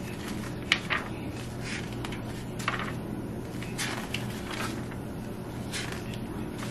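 Paper pages of a handwritten notebook being flipped by hand, a short rustle about once a second, over a steady low hum.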